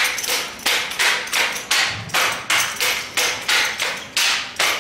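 Sharp slaps of hands striking and gripping a drill rifle in a repeated tick-tock drill manual, about three a second, the pace picking up.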